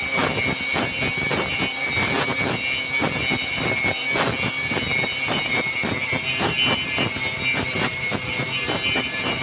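A home-built machine for making wobbler fishing lures running steadily, with a constant high whine and a fast, irregular clatter.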